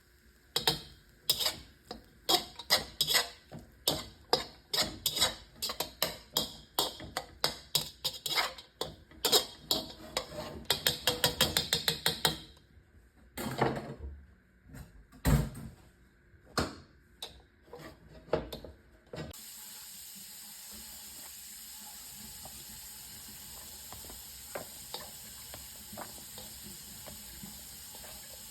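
A utensil clinks and scrapes rapidly against cookware, as in stirring, with a few separate knocks after. Then, about 19 seconds in, a kitchen tap starts running steadily.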